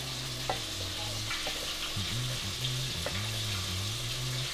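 Battered chicken pieces deep-frying in hot oil, with a steady sizzle. A few light clinks come from hands working in a stainless steel mixing bowl.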